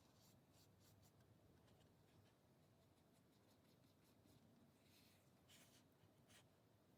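Near silence with faint short scratching strokes of an art tool working on a canvas, a few near the start and a louder cluster about five to six and a half seconds in.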